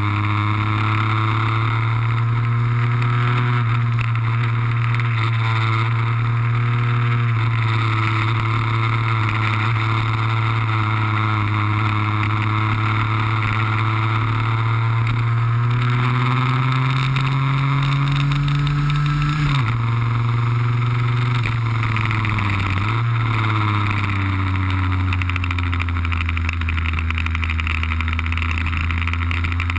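Two-stroke engine of a Lambretta cut-down scooter with an RB20 kit, heard from on board at speed. It holds a steady note that slowly rises, drops abruptly about two-thirds of the way through, dips once more and then settles at a lower pitch.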